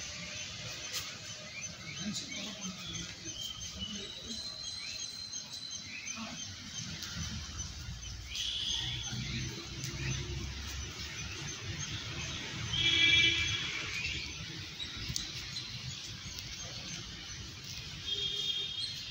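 Birds chirping over a low outdoor background rumble, with short calls scattered throughout and one louder call lasting about a second roughly two-thirds of the way through.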